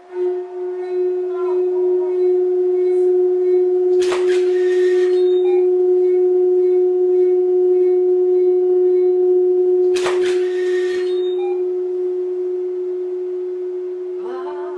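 A steady pure tone, with a fainter overtone an octave above, sounding without a break as it vibrates a round metal plate and spreads piles of coloured sand across it. Two brief noisy rattles break in, about four and ten seconds in.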